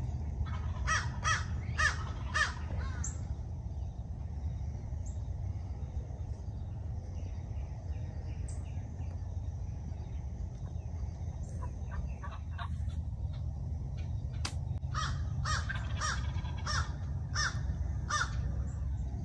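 A crow cawing: two runs of short, harsh, repeated caws, about two a second, six or so near the start and eight or so in the last few seconds, over a steady low rumble.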